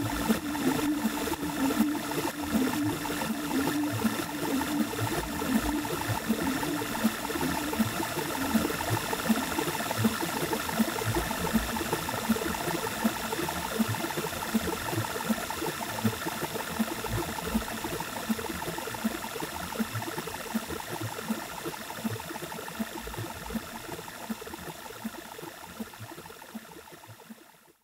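Electronic house/techno track playing out: a steady, evenly repeating percussive beat over held tones, gradually fading out and stopping just before the end.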